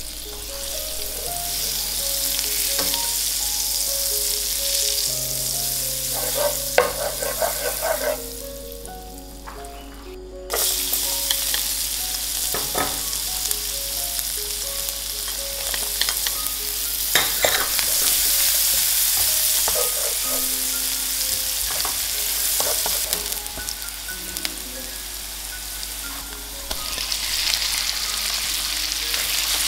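Food sizzling as it fries in a hot pan while being stirred, with scattered scrapes and clinks of a utensil against the pan. About eight seconds in the sizzle dies down for a couple of seconds, then cuts back in suddenly.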